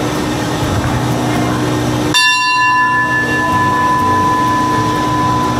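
Passenger train coaches rolling slowly past the platform as the train pulls into the station. About two seconds in, a steady high metallic ringing, either squeal or bell-like, starts suddenly and holds for several seconds.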